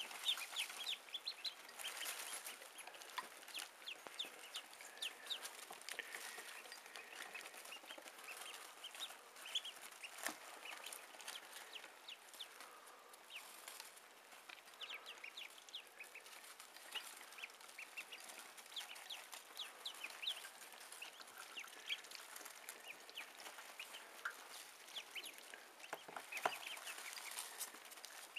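A brood of newly hatched ducklings peeping continually: many short, high calls overlapping, with a couple of soft knocks.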